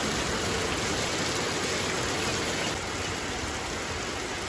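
Rain falling steadily, an even hiss that eases slightly about three seconds in.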